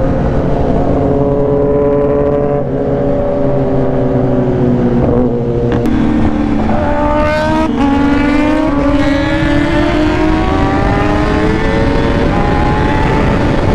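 High-revving superbike engines, their pitch sagging over the first few seconds and then climbing sharply from about six seconds in as the bikes accelerate hard.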